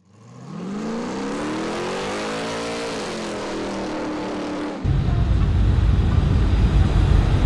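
A car engine revving, fading in: its pitch climbs for about two and a half seconds, then drops away. A little under five seconds in it cuts abruptly to a louder, deep, steady engine rumble.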